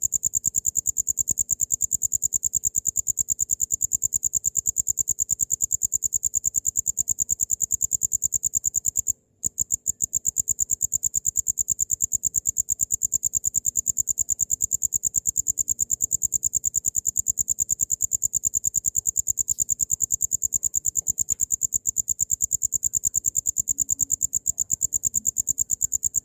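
Cricket chirping in rapid, evenly spaced high-pitched pulses, with a brief break about nine seconds in.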